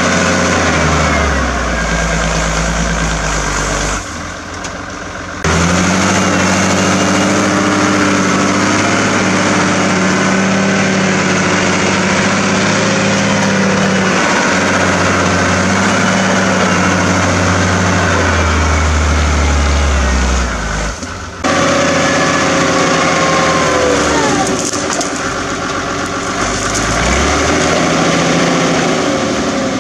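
Agrifull 100DT tractor's diesel engine working hard under load as it pulls a five-shank subsoiler through the soil, its pitch shifting up and down. The sound dips abruptly twice, at about four and twenty-one seconds in.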